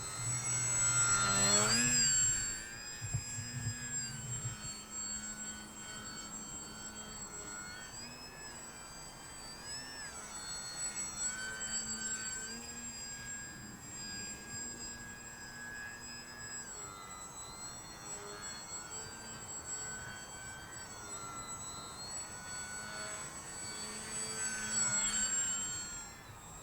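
Volantex Saber 920 RC plane's electric motor and propeller whining in flight. The pitch rises sharply in the first two seconds, then steps up and down with the throttle, growing louder near the end.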